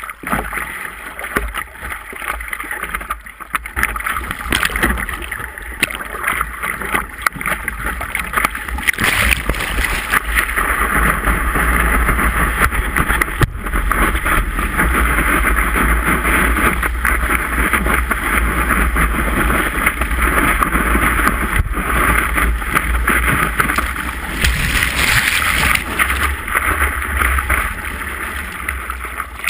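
Sea water rushing and splashing along a surfboard as it rides a small wave, picked up right at the water by a camera on the board's nose, with wind buffeting the microphone. Quieter water lapping at first while the board sits still, growing louder about nine seconds in once the board is moving on the wave.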